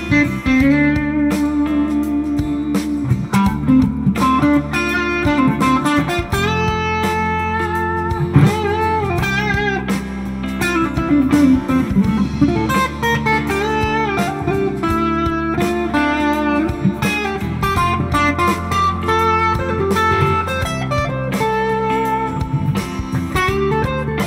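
Fender Road Worn '50s Telecaster played through light overdrive, with an Xotic SP Compressor before it and an EP Booster, into a Fender '65 Deluxe Reverb Reissue: bluesy single-note lead lines with string bends over a backing track with a steady bass line.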